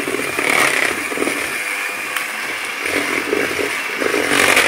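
Electric hand mixer running steadily, its beaters whisking thick semolina-and-flour cake batter in a plastic bowl, briefly louder near the end.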